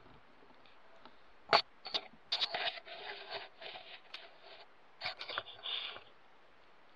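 Handling noise: a sharp click, then a few more clicks and a scraping rustle lasting about two seconds, and another short burst of clicks and rustling near the end.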